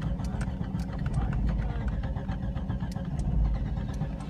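Car engine running with a steady low rumble, just after catching, with faint scattered clicks.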